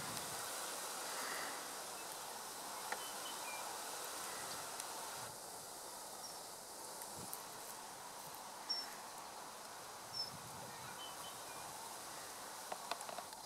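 Steady outdoor background hiss with faint, short, high bird chips every second or two and a few sharp clicks.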